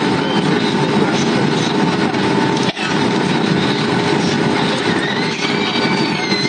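Steady cabin noise of an airliner in flight: a dense low rush of engines and airflow with a faint steady hum, broken by a brief click and dip a little under three seconds in.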